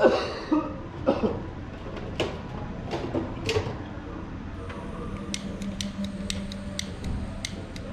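Knocks and clatter of tools and parts being handled, then, about halfway in, a small heat gun switches on and runs with a steady hum and hiss. A run of light clicks, about four a second, sounds over it.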